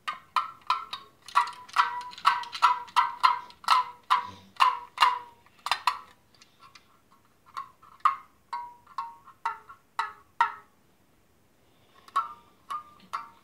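An American Girl doll's toy mini violin played as a simple tune in quick, short, high notes, each starting sharply and dying away fast. The notes stop for a moment about eleven seconds in, then start again.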